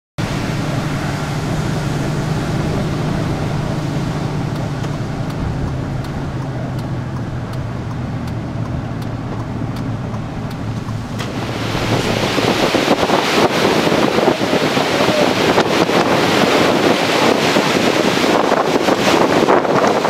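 Hurricane-force wind blasting the microphone, with surf beneath it. For the first half a steady low hum runs under the wind. About eleven seconds in, the wind noise jumps louder and rougher, buffeting in gusts.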